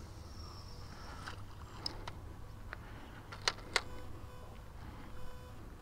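A few light clicks and ticks from fishing tackle being handled, the two sharpest about three and a half seconds in, over a low steady rumble.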